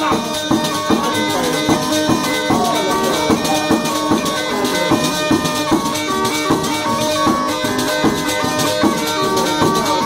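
Lively folk dance music: a melody instrument playing quick notes that step up and down over a steady, even beat with jingling, rattling percussion.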